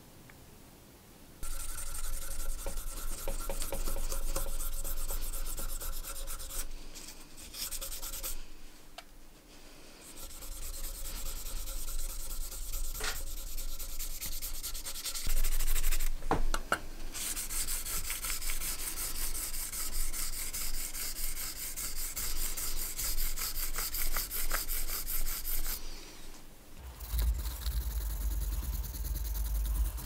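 Brass lighter shell being sanded with a sanding block in rapid back-and-forth scraping strokes, with a few short pauses, to flatten the small unevenness left from its dents. A low hum joins near the end.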